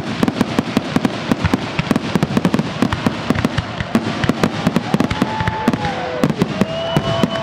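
Fireworks display: a dense barrage of exploding aerial shells and crackling stars, many sharp bangs and pops a second. Several whistling tones glide up and down over the last few seconds.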